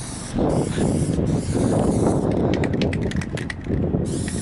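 Aerosol spray can of plastic dip hissing in spurts as it sprays, with a burst in the first second and another near the end, and a quick run of sharp clicks in between, over a low rumble.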